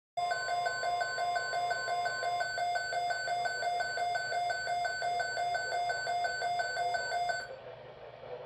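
Weather alert radio's alarm going off: a high electronic beep repeating about three times a second, with a faint steady tone under the first couple of seconds. The beeping cuts off near the end, leaving a low radio hiss.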